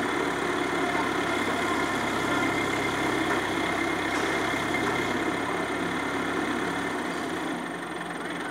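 Ace hydra crane's diesel engine running steadily at a low, even speed while the crane holds a heavy steel tank on its hook, easing off a little near the end.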